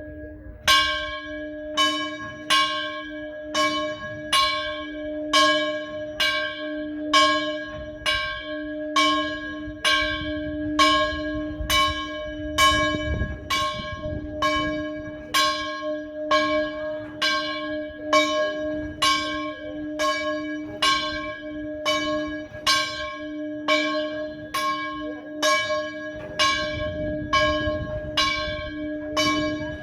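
Church bell ringing steadily, struck about once a second on the same note, each stroke ringing on into the next.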